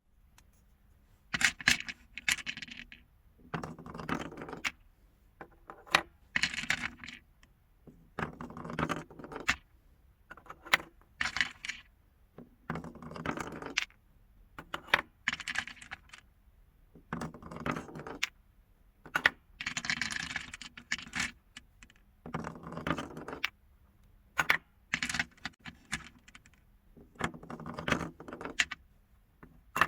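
Marbles rolling and clacking down a marble run, with sharp clicks and rattling runs that come in bursts every one to two seconds.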